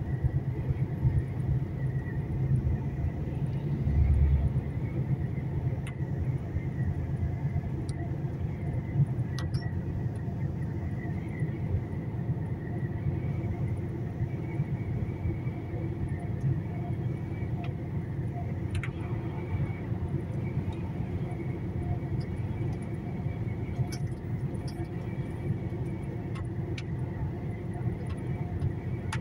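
Truck driving on the road: steady engine and road rumble, with a brief low bump about four seconds in.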